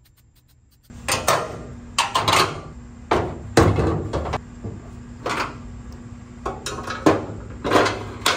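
Irregular metal clanks and knocks, about ten, as a steel truck-bed crossmember and hand tools are moved about on the sheet-steel pickup bed floor, over a steady low shop hum that starts about a second in.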